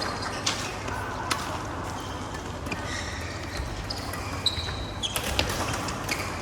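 Badminton play: sharp racket hits on a shuttlecock, a couple early on and a quick cluster near the end.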